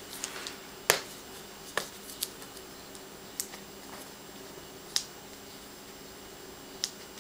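Fingers picking at the tape on a laptop's protective wrap: about half a dozen small clicks and crinkles scattered through, over a faint steady hum.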